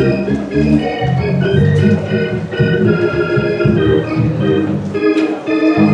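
Church organ playing offertory music: sustained chords that change every half second or so over a moving bass line.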